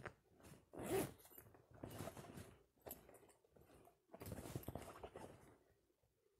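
Faint rustling and handling noises from clothing being handled and packed, in a few short bursts: about a second in, around two seconds, and a longer one from about four to five seconds.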